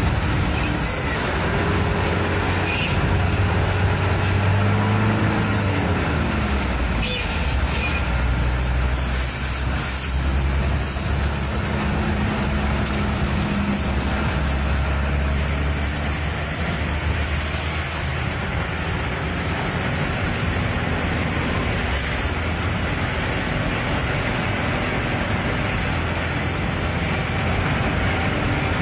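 Chilli truck's engine running as it drives on the road, its pitch dropping around six seconds in. A high, thin whistle wavers above it from about eight seconds in.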